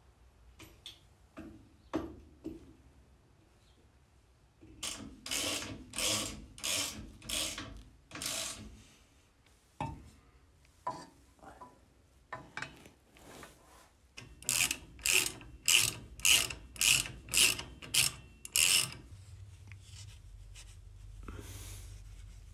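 Hand socket ratchet being swung back and forth to run down and tighten fasteners on a front spindle: two runs of quick rasping ratchet strokes, about two a second, with scattered clicks and clinks of tools and parts between them.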